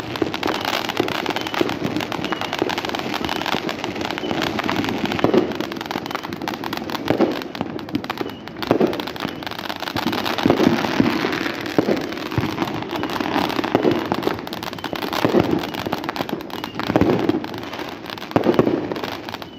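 Fireworks going off: a steady, dense crackling with louder bangs every second or two.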